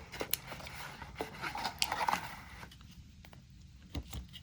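Cardboard and plastic packaging being handled and rustled, with scattered clicks and a low knock near the end, as devices are taken out of the box.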